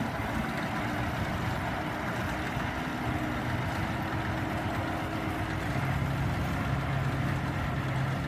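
Caterpillar 988B wheel loader's diesel engine running steadily, with its note deepening and growing a little louder about six seconds in as the loader moves.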